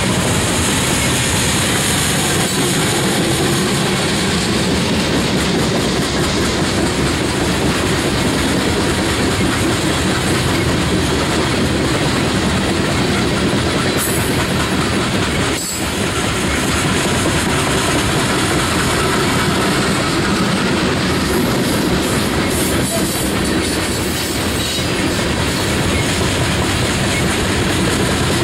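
Loaded coal gondolas of a unit coal train rolling past: a steady rumble and clatter of steel wheels on the rails, with a brief dip in level about halfway through.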